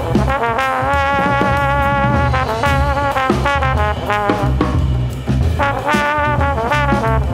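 Improvised jazz led by a trombone: it holds one long note with a slight waver, then breaks into shorter phrases and stabs. A drum kit and hand percussion play underneath.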